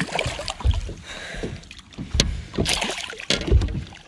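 A large hooked freshwater drum splashing at the surface beside a bass boat, mixed with irregular knocks and thuds on the boat's deck and hull as the angler moves to land it.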